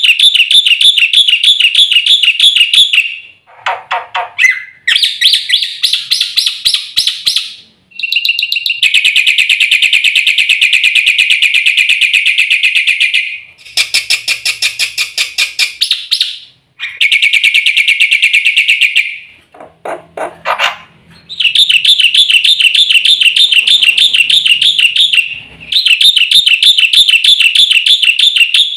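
Jalak putih (black-winged starling) singing in loud phrases of rapid repeated notes, each phrase a few seconds long with short pauses between them, with a couple of quicker falling note runs.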